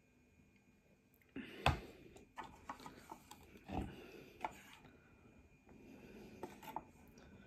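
A person eating: scattered mouth and chewing sounds with a few sharp clicks, the loudest about a second and a half in.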